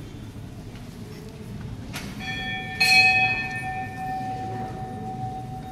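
Temple bell struck twice, about two seconds in and again louder a moment later, then ringing on with one long, slowly fading tone over a low background hum.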